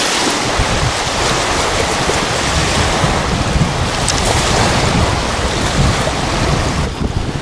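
Wind buffeting the microphone over small waves lapping and breaking on a sandy shore, a steady loud rush.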